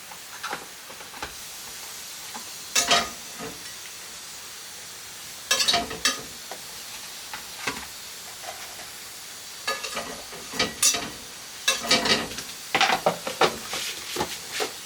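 A metal utensil stirring, scraping and clinking against a pot or pan in several short spells, most busily near the end, over a steady hiss.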